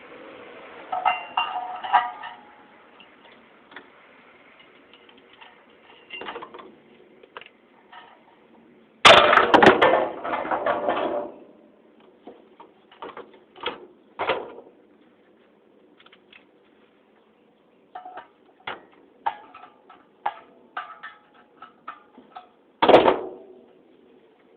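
Metal ceiling-fan parts and hand tools clinking and knocking as the fan is taken apart, with a loud clatter lasting about two seconds near the middle and a sharp knock near the end.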